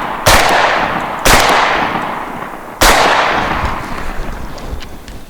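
A Benelli M2 semi-automatic 12-gauge shotgun is fired three times: two shots about a second apart, then a third a second and a half later. Each blast trails off in a long, fading echo.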